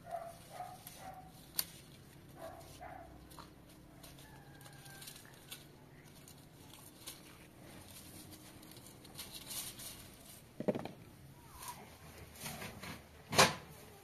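Faint outdoor ambience: scattered rustles and clicks among fig branches as figs are picked, a few brief animal calls near the start, and two sharper knocks near the end.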